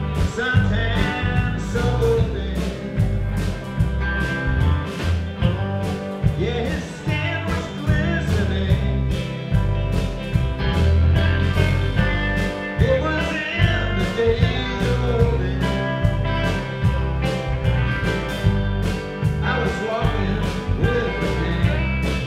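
Live country-rock band playing: electric guitars over bass guitar and a steady drum beat.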